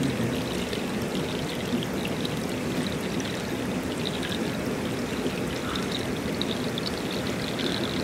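Shallow stream water flowing steadily, an even rushing trickle with no breaks.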